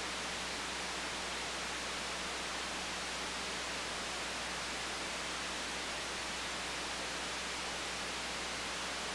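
Steady, even hiss of recording noise with a faint low hum beneath it, unchanging throughout.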